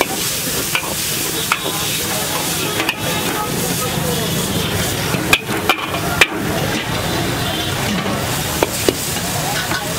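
Vegetables and onions sizzling in a large wok over a high flame while a steel ladle stirs and scrapes them, with sharp clanks of the ladle against the wok several times, loudest a little past the middle.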